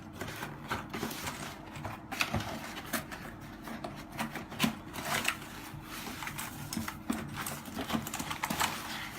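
Cardboard keyboard box being opened and its packaging handled: irregular rustling, scraping and light knocks.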